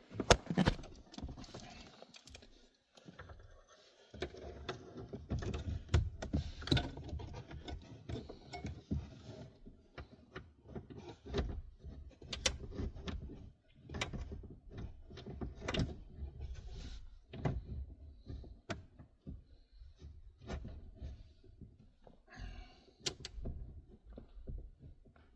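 Irregular clicks, knocks and rustling from hands working with parts and tools on a pickup's steering column under the dashboard.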